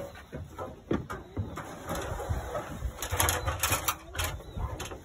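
Graco P395 airless paint sprayer in use: a hiss of paint spraying from the gun mixed with irregular mechanical clicking and knocking.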